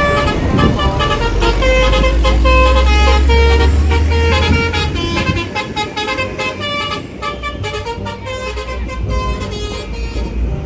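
A bus's multi-tone "telolet" air horn playing a quick melody of short notes, over the heavy low rumble of the bus's engine, which is strongest in the first half.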